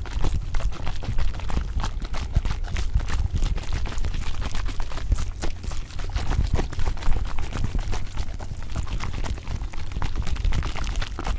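Layered ASMR sounds: a dense, irregular stream of small clicks and taps over a steady low rumble.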